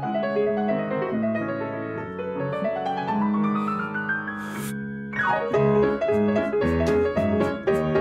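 Piano playing: a long rising run of notes, a brief break about halfway, then a quick falling run into busier playing.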